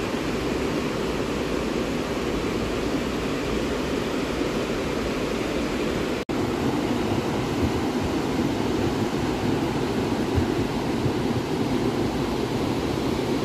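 A swollen, muddy mountain river in spate rushing steadily over boulders: flood water still running high after a cloudburst. The sound breaks off for an instant about six seconds in.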